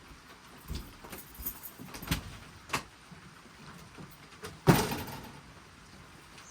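A few light knocks and clicks, then one louder knock with a short ring-out about two-thirds of the way through, over a faint steady hiss.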